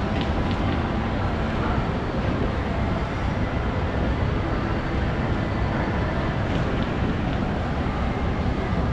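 Shopping centre ambience: a steady, dense background noise with a few faint clicks scattered through it.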